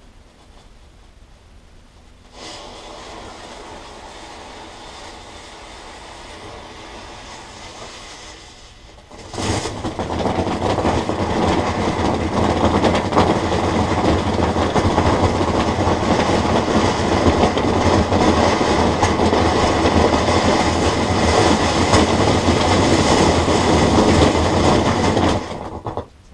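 A firework fountain spraying sparks inside a concrete bunker. A moderate hiss starts about two seconds in. About nine seconds in it grows into a much louder, steady, dense hiss that lasts some sixteen seconds and then cuts off abruptly near the end.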